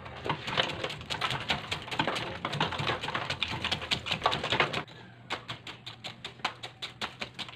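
Block ice being broken up in the tub around an ice-cream freezer can: a dense clatter of ice cracking and crunching, then, about five seconds in, a fast, even run of sharp metal ice-pick strikes chipping the ice.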